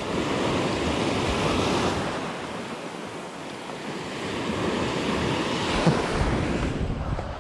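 Shore surf breaking and washing up a sandy beach, with wind on the microphone. The wash swells twice, about a second in and again past the halfway mark.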